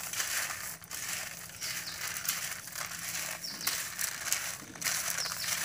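Hard dry chickpeas, damped with a little salted turmeric water, being rubbed and stirred by hand in a steel plate: a dense, continuous rattling and grating of the peas against each other and the metal.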